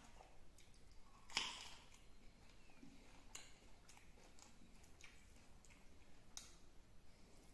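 Faint eating sounds from someone eating rice and chicken by hand: scattered soft mouth clicks and chewing, with one louder crackle about a second and a half in.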